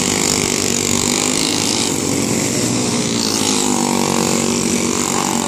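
Racing go-kart engines running hard, several karts at once, their pitch rising and falling as they pass through the turn.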